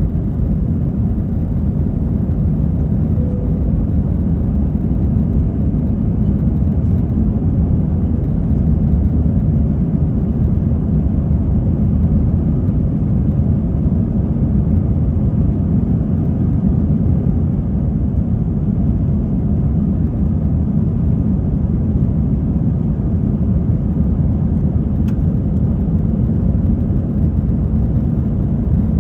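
Steady low rumble of an Airbus A321's engines and airflow heard inside the passenger cabin, even and unbroken.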